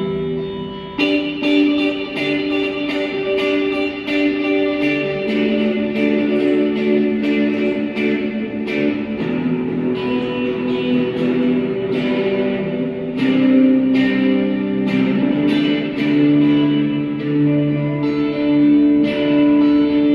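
Instrumental music led by a plucked guitar, its notes struck every half second or so and left ringing over sustained lower tones.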